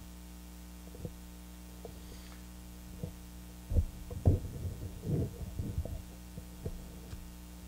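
Handling noise from a desk microphone being gripped and adjusted on its stand: a few soft thumps, then a cluster of louder low bumps and rumbles from about four to six seconds in, over a steady low hum.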